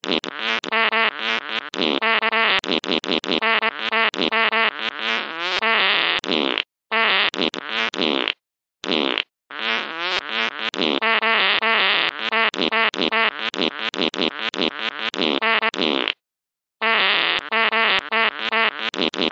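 A fast, choppy run of short pitched novelty sound effects, spliced together with abrupt cuts to dead silence several times.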